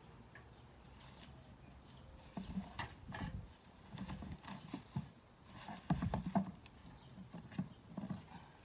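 Irregular scrapes, rustles and light knocks of yard cleanup with a long-handled rake and a bag-lined plastic trash can. They start a couple of seconds in and are busiest around six seconds in.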